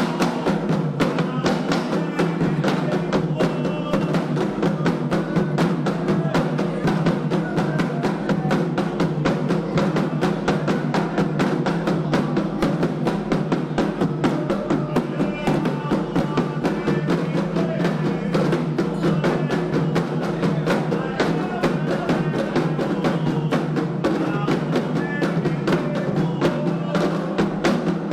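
Candomblé ritual drumming on atabaque hand drums: a fast, unbroken rhythm of dense strokes that keeps going without a pause.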